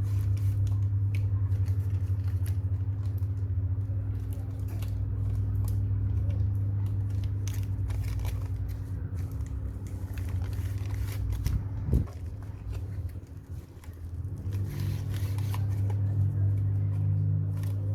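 Steady low electrical hum under scattered small clicks and scraping, with one sharp knock about twelve seconds in.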